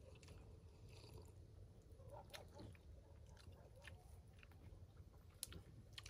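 Faint close-up chewing of a homemade bread roll, with a few small crunches and clicks.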